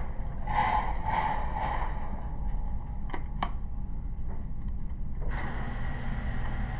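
Steady low room hum with two light clicks about three seconds in.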